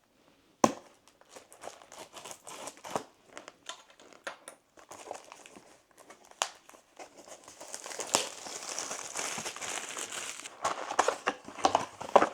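Plastic shrink-wrap on a trading-card booster box being torn and crinkled off, with a sharp snap about a second in and a denser stretch of crinkling later on.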